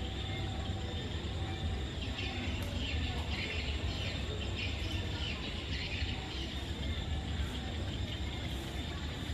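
Steady low outdoor rumble, with faint high chirping from about two to six seconds in.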